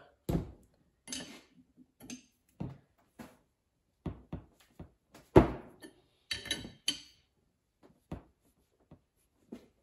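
Wrench tightening a fitting into a Sundstrand Series 15 hydraulic pump housing: a string of irregular metal clicks and clinks, the loudest about five seconds in.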